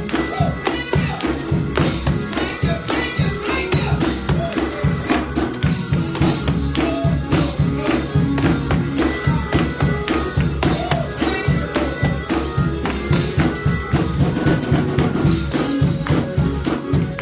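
Upbeat gospel praise music with a tambourine shaken and struck in a quick steady rhythm over a bass line, with some singing.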